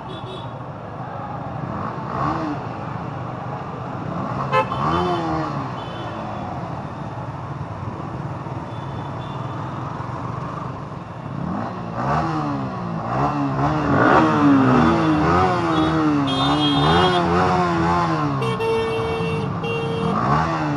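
Motorcycles running in a group ride, with steady engine and road noise throughout. From about halfway, loud voices rise and fall over the engines, and a horn toots a few times near the end.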